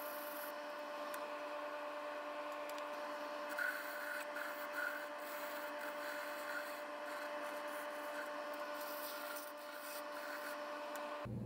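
Wood lathe running with a steady motor whine while sandpaper is held against the spinning wood, a rubbing hiss that swells and fades. The whine cuts off suddenly near the end.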